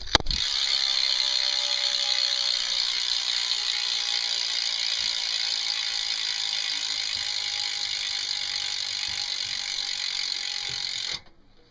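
Eastern Bi-Rectional rear hub on a BMX wheel freewheeling as the wheel spins, its pawls clicking in a fast, pretty loud ratcheting buzz. It starts with a knock, eases slightly as the wheel slows, and cuts off suddenly about eleven seconds in.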